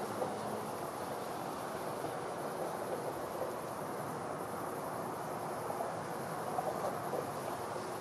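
River water moving with a steady, even rush, with crickets trilling continuously high above it.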